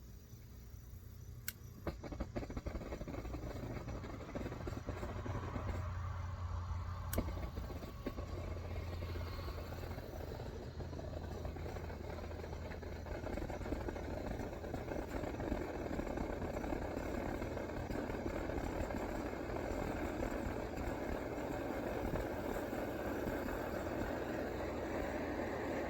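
Coleman 523 military stove burner lighting and building up to a loud, steady rushing burn, with two sharp clicks in the first several seconds.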